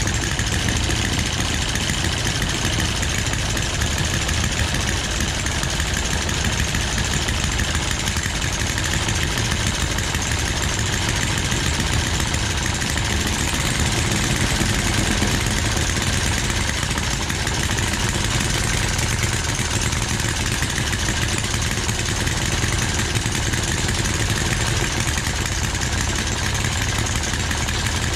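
Two small scratch-built Webster model engines, spark-ignited single-cylinder four-strokes, running steadily together while they are adjusted toward idle. Both are runners that still need fine tuning.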